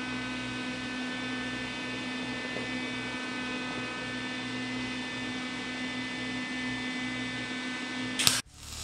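Steady electrical hum made of several fixed tones. Near the end comes a brief crackling burst, then it cuts off sharply.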